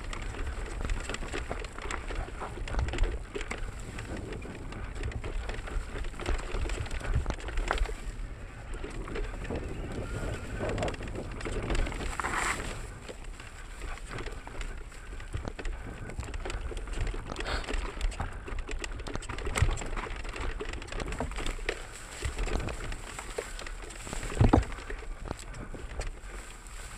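Mountain bike riding down rough dirt singletrack: tyres rumbling over the ground and the bike rattling with many small knocks, with one heavy thump near the end.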